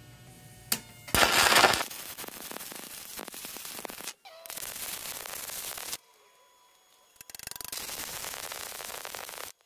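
Stick welder arc crackling and sputtering as a coated electrode burns into a rusty steel square-tube joint. It is loudest in a burst just after a second in, then crackles steadily in three runs separated by short breaks.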